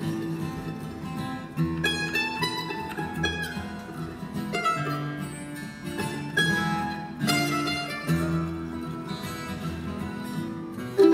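Acoustic guitar and mandolin playing together in a bluegrass instrumental passage, with quick picked runs of high notes over lower sustained guitar notes.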